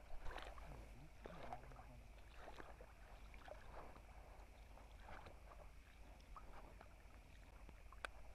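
Faint sloshing of shallow floodwater being waded through, with scattered small ticks and one sharp click near the end.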